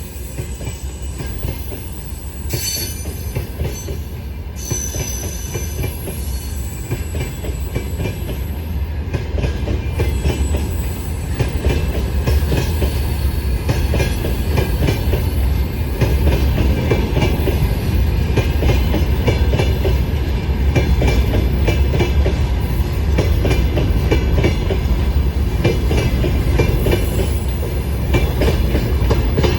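Freight train rolling past on rails: a steady rumble of wheels with clatter over the rail joints. Thin high wheel squeals sound in the first few seconds, and the rolling gets louder about midway.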